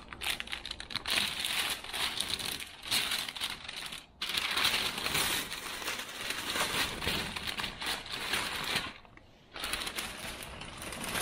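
Blue painter's tape being peeled off freshly spray-painted panels while the brown masking paper it holds crinkles and rustles as it is pulled away: a dense crackling, with short pauses about four seconds in and around nine seconds.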